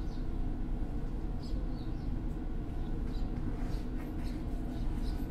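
Meitetsu 6000 series electric train standing at a station before departure: the steady low hum of its onboard equipment, with short high chirps scattered through it.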